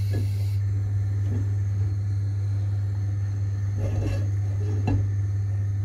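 Steady low electrical hum, with two faint knocks about four and five seconds in.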